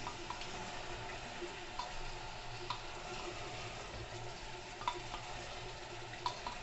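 Mutton and mixed vegetables sizzling with a steady hiss in an aluminium pressure cooker as they are stirred with a wooden spatula, with a few light clicks of the spatula against the pot.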